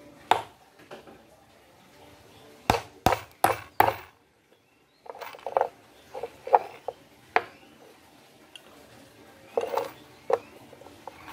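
Hammer driving nails into small wooden blocks: one sharp strike just after the start and four quick strikes around three seconds in. Later come softer, duller knocks as the wooden pieces are handled and set down on the wooden workbench.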